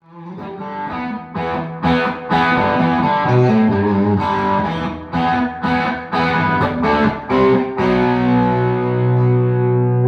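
G&L CLF Doheny V12 electric guitar played through effects with some distortion: a run of struck chords, then a chord left ringing from about eight seconds in.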